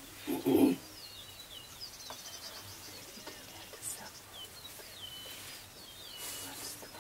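Prairie lek at dawn: many short, high, falling chirps and twitters from small birds, with faint low hoots from greater prairie chickens booming. A brief loud low sound comes about half a second in.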